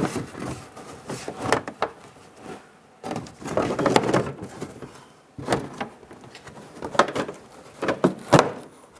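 Plastic inner fender liner being pushed and worked into the wheel well by hand: rubbing and scraping plastic with scattered clicks and knocks, the sharpest knocks near the end.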